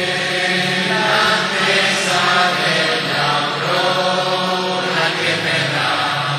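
Church congregation singing an Italian hymn, with long held notes.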